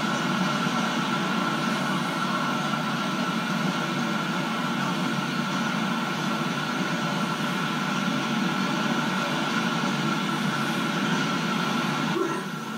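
Freight train of container wagons rolling past, a steady noise of wheels on rail, heard through a computer's speakers. It drops sharply in level near the end.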